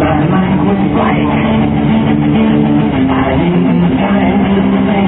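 Background music led by guitar, with held notes that change every second or so.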